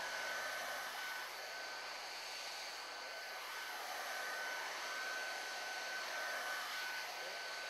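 CV1981 heat gun blowing a steady stream of hot air, with a thin, steady whine over the hiss, while shrinking a heat-shrink moulded boot down onto a cable.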